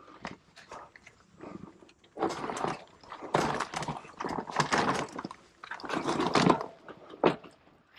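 Irregular crunching and scuffing of footsteps on rocks and an e-bike being walked over them, its tyres and frame rattling, with a sharp knock about seven seconds in.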